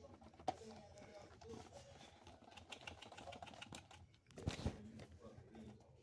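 Handling noise: light clicks and rustles as a plastic DVD case is turned over, with a louder rustle about four and a half seconds in.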